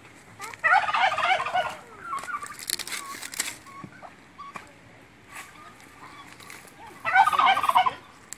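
Domestic tom turkey gobbling twice, a rapid warbling rattle about a second in and again near the end, with fainter, higher bird calls in between.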